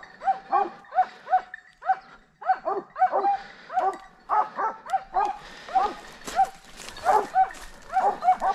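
Several hunting hounds baying on a wild boar's trail, short yelping calls a few a second with voices overlapping.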